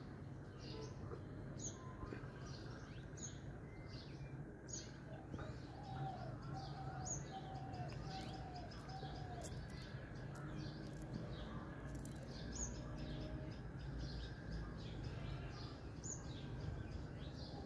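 Birds chirping, with short high chirps repeating every second or two. A run of about five lower, evenly spaced notes comes about six seconds in, over a low steady hum.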